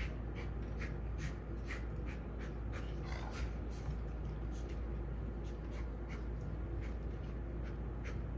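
A golden retriever panting, short rhythmic breaths about two to three a second.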